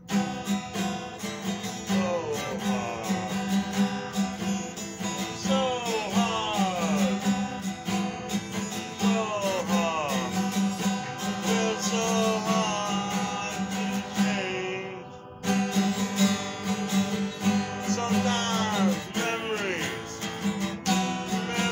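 Acoustic guitar strummed in a steady rhythm, stopping for about a second roughly two-thirds through before starting again. A man's voice sings along in places, sliding between notes.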